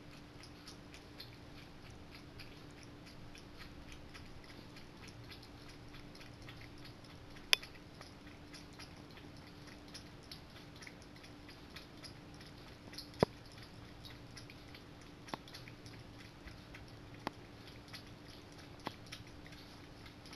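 Orange tabby cat eating from a food bowl: faint, steady crunching chews made of many small clicks, with a few sharper clicks, two of them much louder, about a third and two-thirds of the way in.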